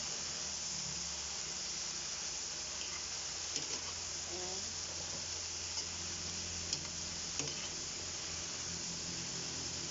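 Pork and vegetables sizzling in a wok over a gas flame: a steady frying hiss, with a few short clicks and scrapes of the spatula as the pieces are turned.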